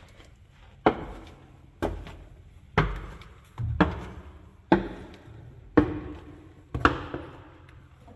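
Slow, heavy footsteps climbing out of a crypt, seven steps about a second apart, each with a short echo.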